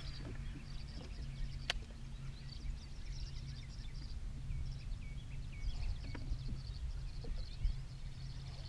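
Birds chirping and trilling in short high phrases over a steady low hum, with one sharp click about two seconds in.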